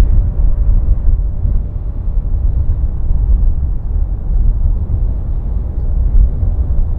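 Wind buffeting the microphone: a loud, steady low rumble that fluctuates quickly and masks other sound.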